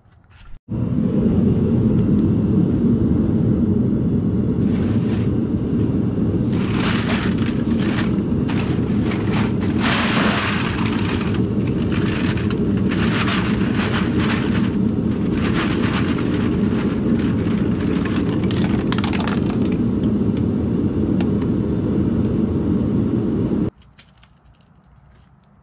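A steady low rumble, loud and noise-like, with bouts of rustling and clattering as a plastic bag of empty aluminium cans is tipped into a plastic bucket, thickest about ten seconds in. The rumble starts and stops abruptly.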